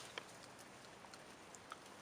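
Faint ticks and taps of wooden sticks poking through campfire ash and embers: one sharper click just after the start and a smaller one near the end, over a low hiss.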